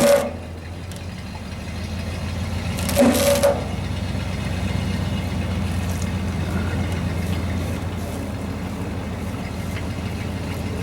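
A motor vehicle engine idling steadily, with two brief loud noises about three seconds apart.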